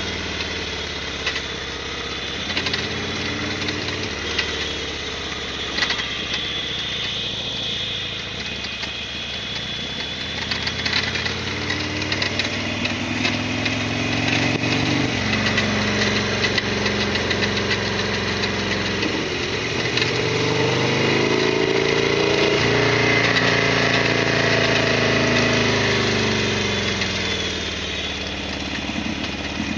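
Harley-Davidson Sportster XL1200R's air-cooled 1200 cc V-twin running, its engine speed rising midway, then rising and falling again near the end, with short ticking rattles throughout.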